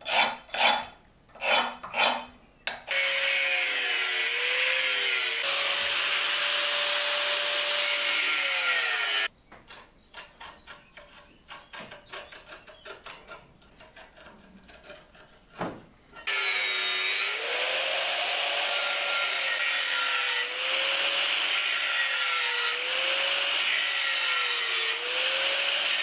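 Angle grinder with a thin cutting disc cutting slots into a flat steel masher blank held in a vise: two long runs, about six and ten seconds, the motor's whine dipping in pitch each time the disc bites into the steel. Between the runs come quieter irregular scraping and a single sharp knock, and before the first run a quick series of rhythmic strokes.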